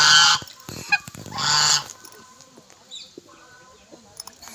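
A duck quacking loudly twice, once at the start and again about a second and a half later, followed by fainter calls.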